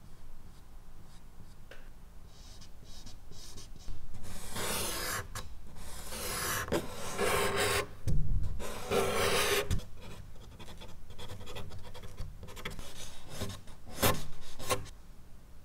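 Charcoal scraping across medium-surface drawing paper in strokes. It is faint at first, then long, loud strokes begin about four seconds in, lighter quick strokes follow, and there are two short hard strokes near the end.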